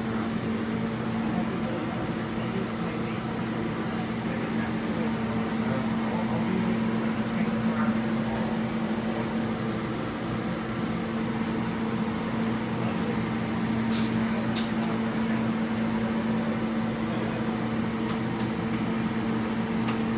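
A steady mechanical hum, like a fan or ventilation unit running, with a constant low tone over an even hiss. A few light clicks come in the second half.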